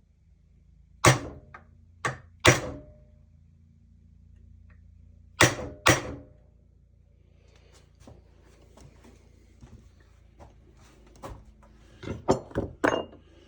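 Sharp knocks and clatters of metal tools or the workpiece being handled on a workbench, a few with a brief ring, over a faint steady hum. Five loud knocks come in the first six seconds, then lighter clicks and a quick run of knocks near the end.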